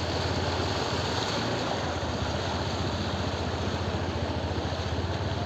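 Motorcycle engine running steadily at low speed while the bike rides through floodwater, under an even rushing noise.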